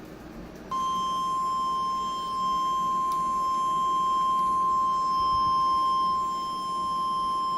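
NOAA Weather Radio 1050 Hz warning alarm tone from a weather radio's speaker: one steady, unbroken beep that starts abruptly about a second in. It signals that a warning is about to be broadcast, here a severe thunderstorm warning.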